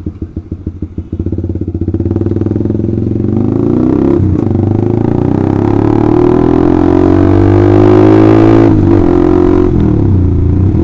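Honda CBR150R's single-cylinder engine through an Austin Racing aftermarket exhaust: loud, separate exhaust pops at low revs, then the engine pulls up through the revs with a steadily rising note, dipping briefly about four seconds and about nine seconds in before climbing again.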